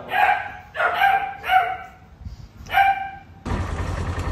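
Puppies barking in short, high yaps, four of them about a second apart. A little past halfway the sound switches to a Polaris Ranger utility vehicle's engine idling in a steady low rumble.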